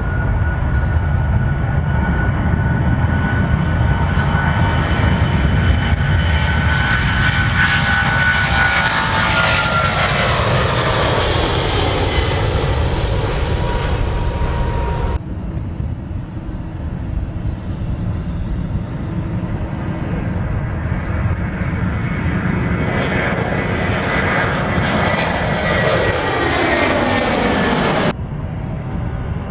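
Twin-engine Boeing 777 jet engines at takeoff power, a loud steady noise with a high fan whine that falls in pitch as the airliner climbs away past the microphone. About halfway there is a sudden cut to another jet airliner's engines, which swell and then fall in pitch as it goes by, and a second sudden cut comes near the end.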